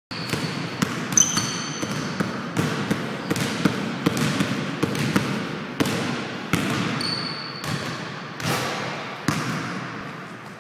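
Basketball dribbled hard and fast on a hardwood gym floor: a quick, uneven run of bounces echoing in the gym. Short high sneaker squeaks come about a second in and again about seven seconds in.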